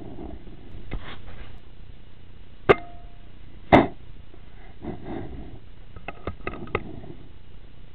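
Two sharp cracks from an Air Arms S510 .22 PCP air rifle about a second apart, the second louder, with rustling handling noise between them. Near the end comes a quick run of light metallic clicks.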